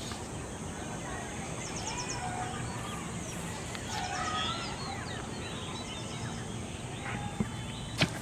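Birds chirping and calling over a steady outdoor background hiss, with a sharp click near the end.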